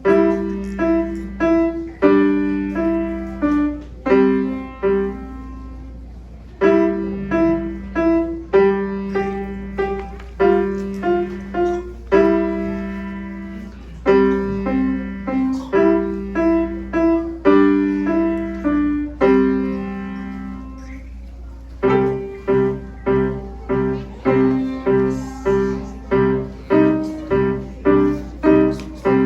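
Solo piano playing simple beginner pieces as short, separated melodic phrases with brief pauses. About 22 s in, the playing changes to evenly repeated notes over a low bass. A steady low hum runs underneath.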